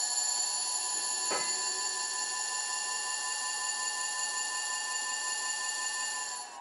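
Electric bike motor spinning at a steady speed under throttle, driven by a repaired 18-FET Lyen controller: a steady, high electric whine made of several fixed tones, with one brief knock about a second in. The whine eases off near the end.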